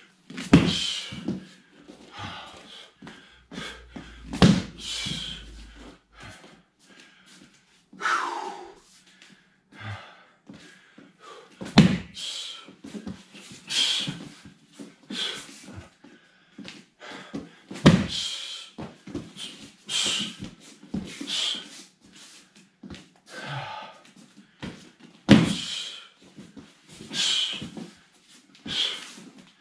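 Breakfall slap-outs on foam puzzle mats: hands, arms and body slapping and thudding down onto the mats, the heaviest falls about every six seconds, with smaller slaps and hard breaths in between.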